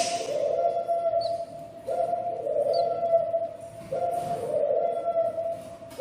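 Baby budgerigar chicks calling, in bouts that repeat about every two seconds.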